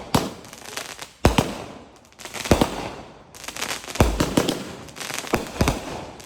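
Consumer fireworks going off: a string of about five sharp bangs, two of them close together near the end, with crackling in between.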